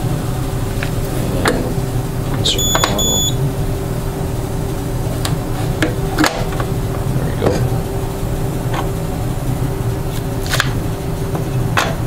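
Biostar thermoforming machine humming steadily, with a short electronic beep about two and a half seconds in. A few sharp metallic clicks follow as the chamber's handles are turned and the lid is unlocked and opened.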